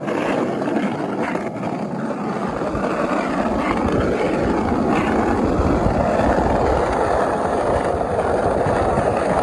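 Steady rushing noise from a bicycle moving along an asphalt street: wind buffeting the microphone and tyres rolling on the road, with a low rumble that grows from about three seconds in.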